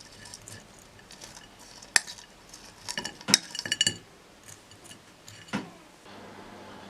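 Cutlery and dishes clinking: one sharp clink about two seconds in, a quick run of clinks around three to four seconds, and a single knock near the end.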